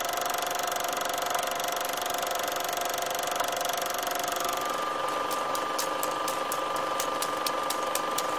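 Steady mechanical whirring with a held whine that steps higher about halfway through, and sharp ticks from about five seconds in that come faster towards the end.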